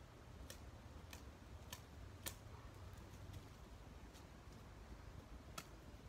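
Faint, sharp clicks of a hand blade cutting through weed stems: a run of four about every half-second, a few fainter ones, then one more near the end.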